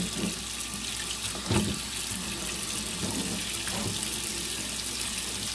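Hot water running steadily from a kitchen tap and splashing onto a stainless steel freeze-dryer tray held in the sink, with a soft bump about a second and a half in.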